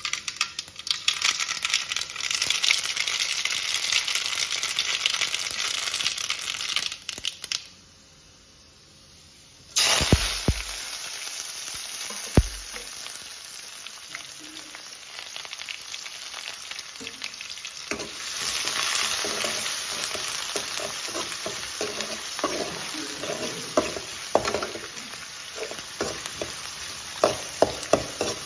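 Shallots and curry leaves sizzling in hot oil in a steel kadai, loud at first, then briefly dropping away with two dull thumps before the sizzle comes back. Near the end a metal spatula stirs the pan, adding quick scraping clicks over the frying.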